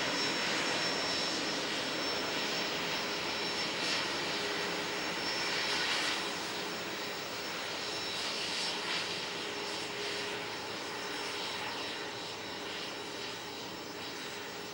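Twin turbofan engines of a Beechjet 400A business jet running at low power as it rolls along the ground: a steady rush with a high whine and a lower hum, easing off slightly toward the end.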